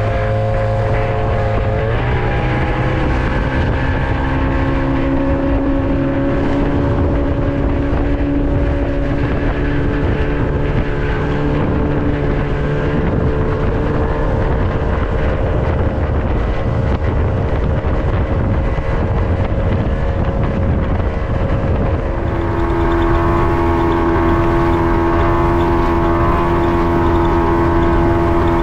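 Motorboat engine running under way, a steady engine note that rises in pitch about two seconds in as it speeds up, then changes note and gets a little louder about three-quarters of the way through.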